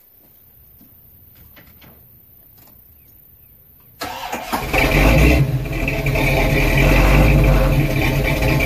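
1977 Pontiac Trans Am's 455 V8, freshly fitted with a rebuilt carburetor, started up: quiet at first, then about four seconds in it cranks briefly, catches almost at once and runs loud and steady.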